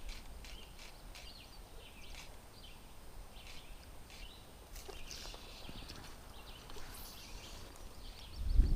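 Small birds chirping faintly and repeatedly in short high calls, over quiet river-side ambience. Near the end a loud low rumble sets in.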